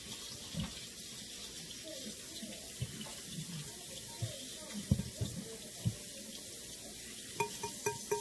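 A whisk stirring a runny glue-and-water mixture in a bowl: a steady wet swishing, with a few soft knocks of the whisk against the bowl and some short squeaks near the end.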